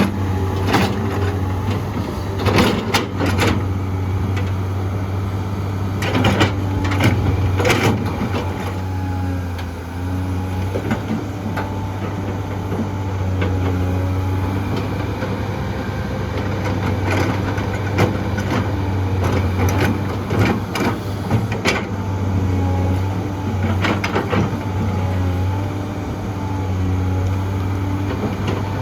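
Heavy diesel excavator running under load, a steady low engine drone with shifting hydraulic tones above it. Sharp clanks and knocks come in clusters, typical of the bucket working and dirt and rock dropping into a dump truck's bed.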